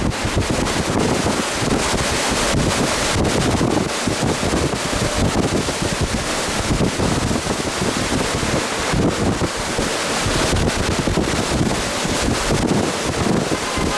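Strong, gusting wind from a nearby strengthening tornado buffeting the microphone: a loud, continuous rush with heavy low rumbling and crackling gusts throughout.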